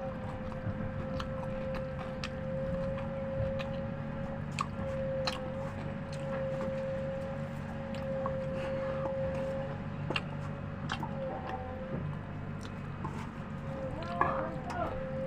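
A person chewing food close to the microphone, with scattered small mouth clicks and smacks, over a steady background hum with one constant tone.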